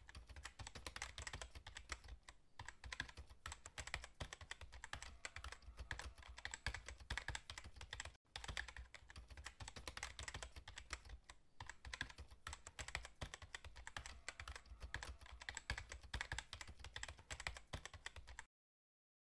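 Rapid keyboard typing clicks, a typing sound effect running with a few short breaks and stopping abruptly near the end.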